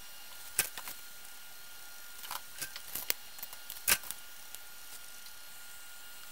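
Scattered sharp clicks and taps of small hand tools and a perfboard being handled during soldering, about half a dozen, the loudest about four seconds in, over a faint steady high tone.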